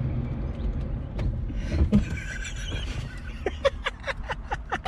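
A steady low rumble, then near the end a person laughing in a quick run of short bursts.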